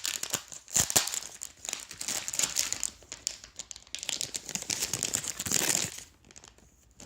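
Packaging of a pack of doily paper crinkling and rustling as it is handled and opened by hand, with sharp crackles throughout; it dies away about six seconds in.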